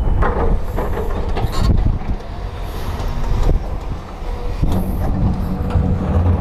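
Volvo crawler excavator's diesel engine running under load while its bucket digs into broken stone, with rocks knocking and scraping in the first couple of seconds. The engine grows louder about two-thirds of the way through, as the machine puffs dark exhaust.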